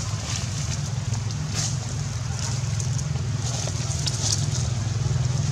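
Steady low rumble with scattered short crackles of dry leaf litter as a baby macaque scrambles and jumps over the forest floor.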